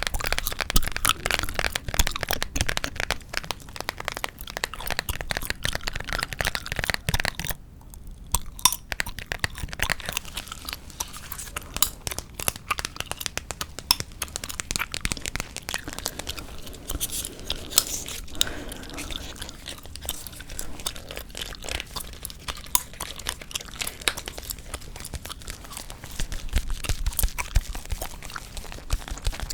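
Close-miked ASMR gum chewing and tapping: dense, fast clicks and crackles, with a brief pause about eight seconds in.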